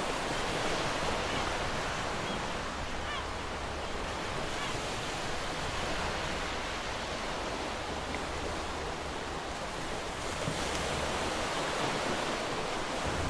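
Stock ocean-waves sound effect: a steady wash of surf, with a few faint gull cries about three seconds in.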